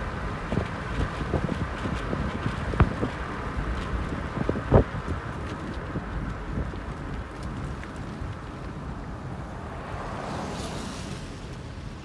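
Steady road and wind noise from a moving car, heard from inside the cabin, with wind buffeting the microphone. There are two sharp knocks, a small one about three seconds in and a louder one about five seconds in. A brief rushing swell comes near the end.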